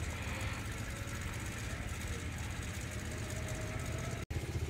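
A steady low engine rumble, as of an engine idling, with a faint thin tone drifting slightly upward over the middle. The sound cuts out completely for a moment near the end.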